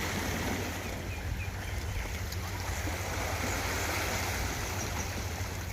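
Steady rushing water noise with a low rumble underneath, and a few faint high chirps.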